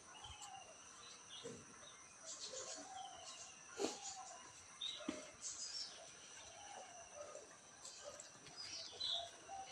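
Faint birds chirping and calling in short, scattered notes over a steady, faint high tone, with a couple of light clicks about four and five seconds in.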